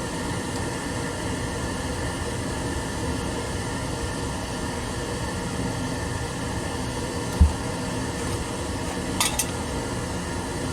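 Steady fan-like mechanical hum, with a single dull knock about seven seconds in and a quick pair of sharp clicks a little after nine seconds.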